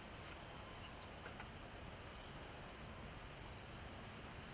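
Faint, steady outdoor background hiss with a few soft, scattered ticks.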